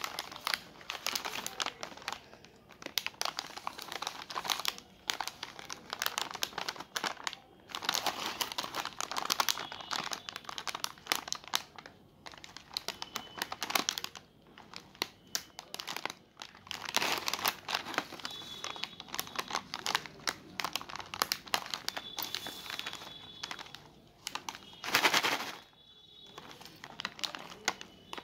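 Bingo Tedhe Medhe plastic snack packets crinkling as they are handled, squeezed and turned over in the hands: irregular stretches of crackle with short pauses, the loudest burst about 25 seconds in.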